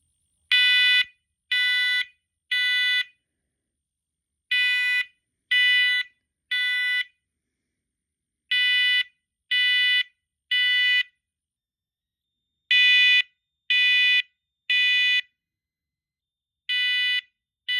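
First Alert SMCO500V smoke and carbon monoxide alarm sounding on test: loud half-second beeps of one steady shrill pitch in groups of three, each group followed by a pause of about a second and a half. This is the temporal-three (code 3) evacuation pattern, repeated four times with a fifth group beginning near the end.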